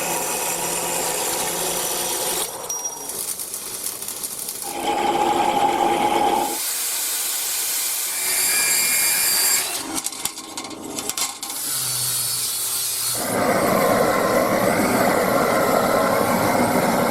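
Workshop power tools working metal, heard as a quick series of short clips that change abruptly every few seconds; the last and loudest segment runs for about four seconds.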